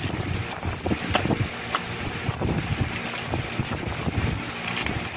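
Plastic packaging bags rustling and crinkling as hardware is handled in a cardboard box, with scattered small knocks and clicks.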